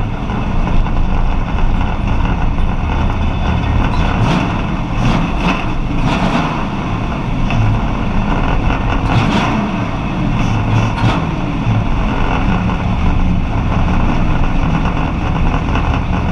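Street stock race car's engine running at low revs while the car drives slowly, heard from inside the car, with the engine note swelling a few times.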